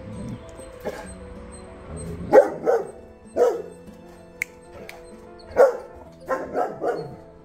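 A Saint Bernard barking aggressively in two bouts: three barks starting about two seconds in, then four more near the end, over background music.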